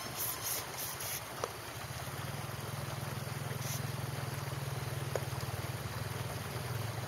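Small stream running over rocks, a steady rushing, with a few brief rustles in the first second. A low steady hum comes in about two seconds in.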